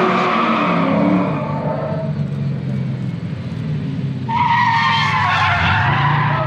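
Drift cars sliding past: engine noise at high revs easing over the first two seconds, then a loud tyre screech starting about four seconds in and cutting off near the end as two cars drift side by side.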